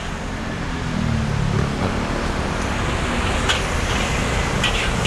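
Steady rumble of road traffic going past, swelling a little about a second in, with a few light clicks in the second half.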